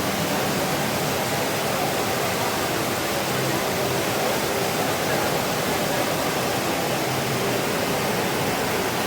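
Water fountain splashing, a steady, even rush of falling water.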